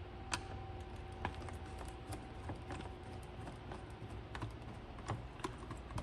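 Light, irregular clicks and ticks of a screwdriver loosening the captive screws on an engine air filter housing cover.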